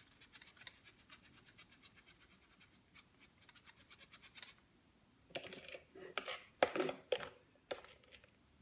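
Small fine-mesh metal tea strainer tapped and shaken over a bowl, a faint rapid scratchy ticking as cornstarch sifts through the mesh. About five seconds in it gives way to a few louder, separate strokes.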